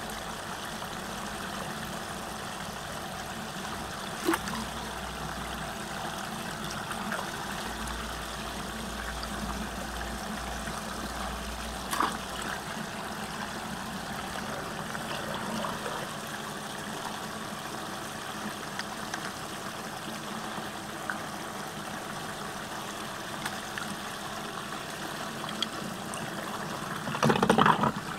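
Water swirling and draining down a whirlpool vortex hole: a steady rushing wash, broken by two sharp clicks and a louder burst of noise near the end.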